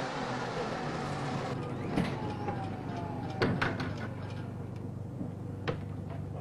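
City bus sounds: a steady hiss for about a second and a half, then a few sharp knocks and clunks, with a faint falling whine between them.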